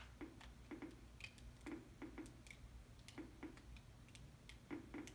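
Geiger counter clicking at irregular intervals, a few clicks a second, as it counts beta radiation from a strontium-90 source.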